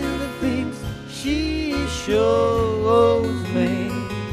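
Live acoustic pop-rock band playing: a melody line held with vibrato about two to three seconds in, over electric bass, strummed acoustic guitar and drums.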